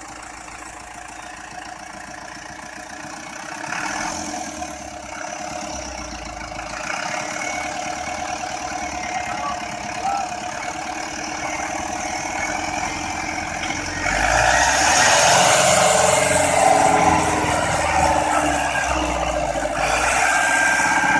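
Diesel farm tractor engines running under load while pulling a stuck tractor and trailer out of mud. The engine note grows clearly louder about two-thirds of the way through as the pull takes hold, then eases near the end.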